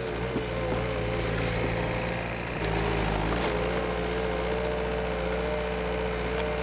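Diesel engine of a TL230 compact track loader running under load with a steady high whine, as the machine pushes a bucketful of snow. The whine dips briefly about two and a half seconds in, then comes back a little louder.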